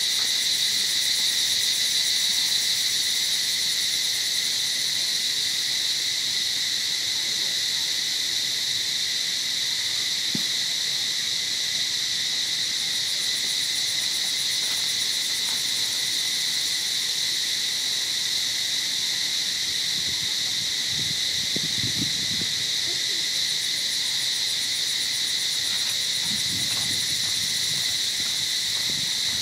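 Steady chorus of insects in the trees, a continuous high-pitched drone without breaks.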